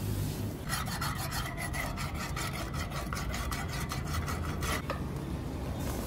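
Rapid back-and-forth strokes of a hand-held sharpening tool across the edge of a leaf-spring steel billhook blade, about five strokes a second, starting just under a second in and stopping near five seconds.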